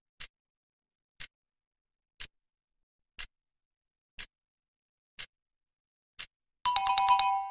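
Clock-tick sound effect ticking once a second for a quiz countdown. About six and a half seconds in, the ticking gives way to a quick run of ringing bell-like strikes that rings on, marking that the time is up.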